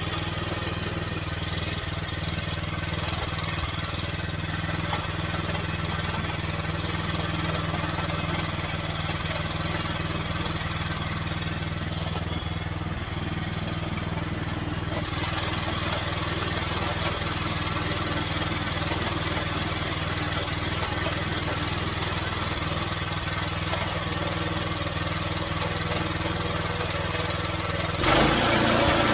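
The gasoline engine of a Norwood Frontier OS23 bandsaw sawmill running steadily. About a second before the end it suddenly gets louder and fuller.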